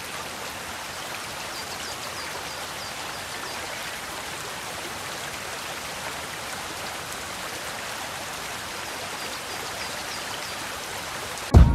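Steady rushing of a stream, an even water noise, with two faint runs of quick, high chirps. Loud music cuts in right at the end.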